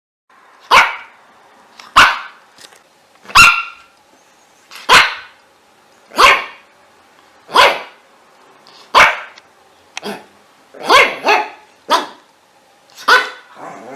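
A dog barking: about a dozen single barks, evenly spaced at first, roughly one every second and a half, then coming closer together near the end.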